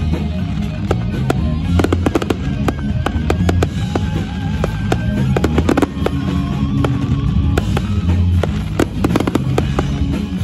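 Fireworks going off in rapid succession, with many sharp bangs and crackles, over loud music with a heavy bass.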